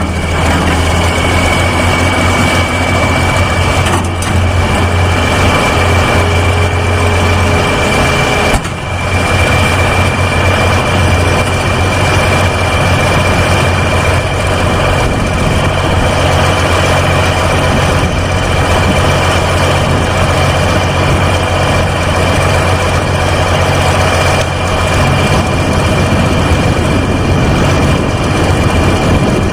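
Excavator's diesel engine running steadily with a deep hum and a constant high whine over it; the sound dips briefly about nine seconds in.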